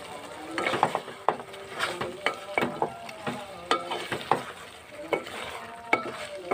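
Flat wooden spatula stirring chicken curry in a metal pot, knocking and scraping against the pot in quick, irregular strokes.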